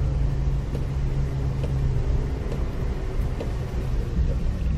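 Citroën Xantia Activa heard from inside the cabin on a rain-soaked track: steady engine rumble and wet road noise, with faint ticks about once a second.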